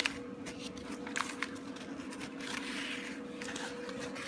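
Faint rustling and a few light clicks of a small paper shopping-list leaflet being handled and unfolded, over a steady low hum.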